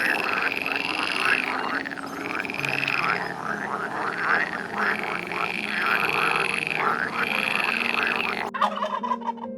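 A dense, rapid run of animal calls, a busy chattering chorus that changes character near the end, over low held background notes that shift in pitch.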